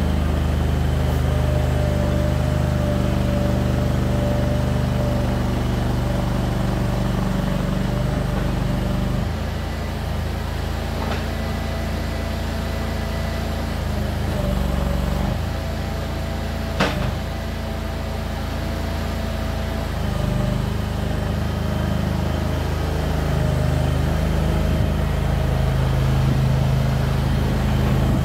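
Kanga mini loader's engine running steadily as the machine is driven, with a thin steady whine over the engine note. The engine note drops about a third of the way in and picks up again near the end, and there is one sharp click a little past halfway.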